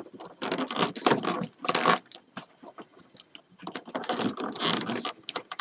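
Stiff rolled-paper weaving tubes rustling and clicking as a pointed metal tool and fingers work a tube end under a woven stitch. The sound comes in two spells of quick small clicks, from about half a second to two seconds in and again from about three and a half to five seconds.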